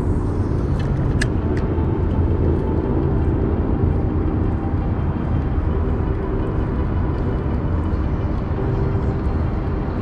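Steady low rumble of a motor, with faint steady hum, and a few sharp clicks in the first second or two.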